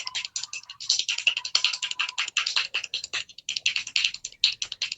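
An improvised drum roll tapped out by hand: a fast, uneven run of sharp taps.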